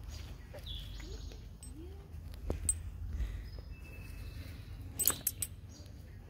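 Quiet outdoor background: faint bird chirps over a low wind rumble, with a few sharp clicks, the loudest a cluster of three about five seconds in.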